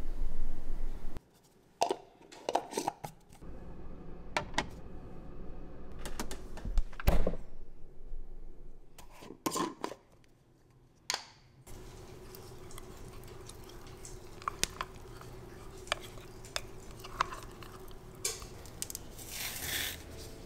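Kitchen handling sounds: a series of separate clicks and knocks from glass jars, a spoon and black plastic screw-on lids on a countertop. Near the end comes a short rustle as a banana is peeled. A faint steady hum runs under the second half.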